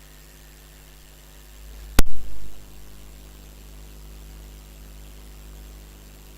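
Steady electrical hum with hiss, broken about two seconds in by a sharp knock and a brief thump just after.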